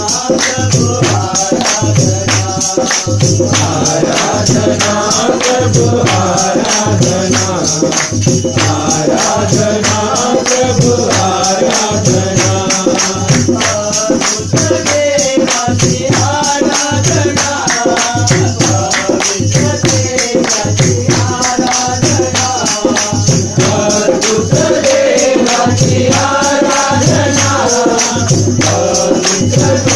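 Marathi Christian worship song: voices singing over music with a steady bass beat and busy percussion.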